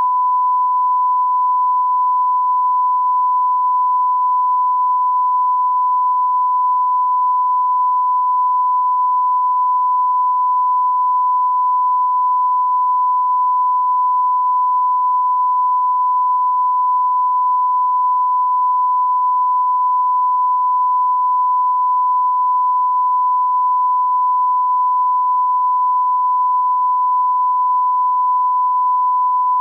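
Broadcast line-up test tone played with colour bars: one steady, unbroken pure tone at a single pitch.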